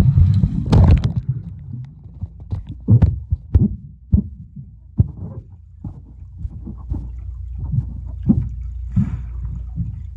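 Muffled underwater sound of swimming-pool water churning around a submerged camera: a constant low rumble with irregular knocks and thumps, and a brighter splashy burst just under a second in.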